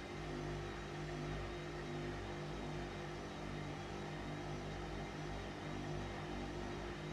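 Washing machine running a load of laundry: a steady motor hum with a constant low drone and no breaks.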